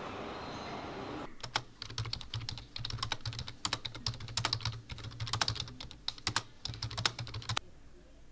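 Fingers typing fast on a computer keyboard: a quick, irregular run of key clicks that stops suddenly near the end. It comes after about a second of steady background noise.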